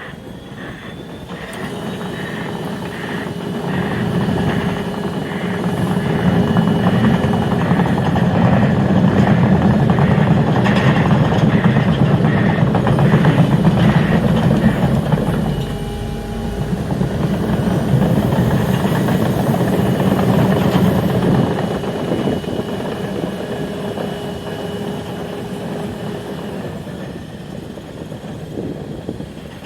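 Train passing on the line: a heavy rumble with a steady whine and a rhythmic run of wheel beats. It builds to its loudest around the middle, dips for a moment, then slowly fades away.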